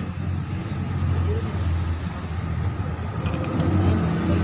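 Engine and road noise inside a moving vehicle: a steady low hum that grows a little louder near the end.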